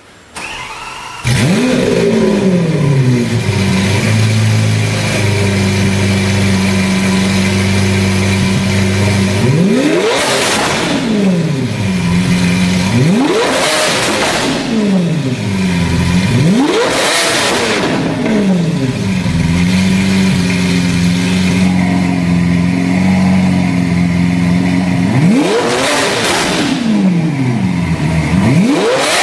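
Car engine revved in sharp blips, each rising and falling back to a steady idle. It comes in loud about a second in with a rev falling away to idle, then blips four more times, with another starting near the end.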